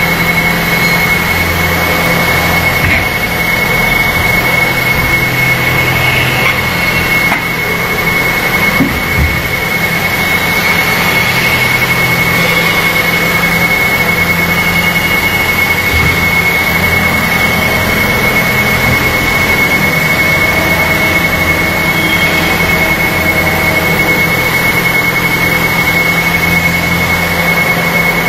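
Injection molding machine running: a steady mechanical drone with a constant high whine over it, and a faint knock about nine seconds in.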